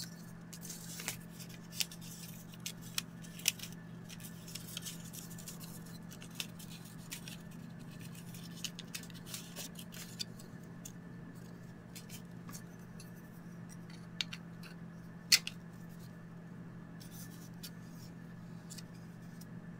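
Scattered small clicks and paper sounds as a 3D-printed plastic roller is handled and loaded with a roll of calculator paper, the sharpest click about fifteen seconds in, over a steady low hum.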